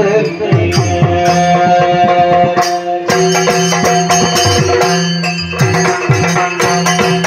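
Yakshagana ensemble music: a barrel drum plays quick, dense strokes over a steady held drone.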